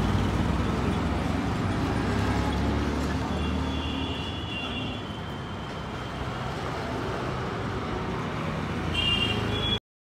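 Steady rumble of road traffic, with a brief high tone twice. It cuts off abruptly just before the end.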